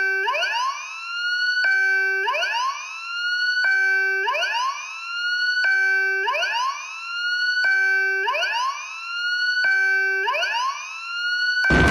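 Siren-like tone in an experimental music track: a short held note that sweeps upward and levels off, repeated every two seconds, six times. A dense noisy texture cuts in near the end.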